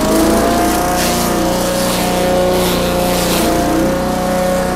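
Small engine-driven forage chopper running at speed with a steady whine, its blades shredding green stalks fed into both side inputs at once, in about four short bursts of chopping noise.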